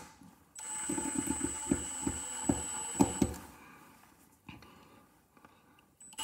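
Milwaukee M18 Fuel impact driver (second-gen FID2) in its fastest speed mode running for about three seconds, a high motor whine with rapid hammering knocks as it drives a screw into a block of wood, then winding down.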